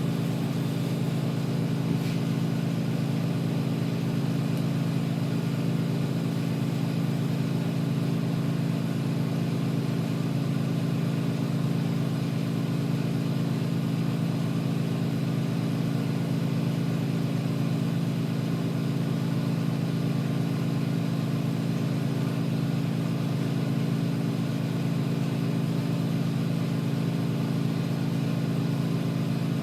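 Neon glass-bending burners and their air blower running: a steady, unchanging low hum.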